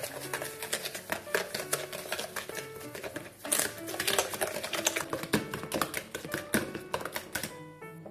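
Balloon whisk beating eggs and sugar in a mixing bowl: quick, irregular clicking and scraping of the wires against the bowl, which stops just before the end. Soft background music plays underneath.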